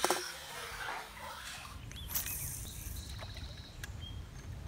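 A largemouth bass hits the water with one splash right at the start as it is thrown back beside the boat, followed by a low steady rumble.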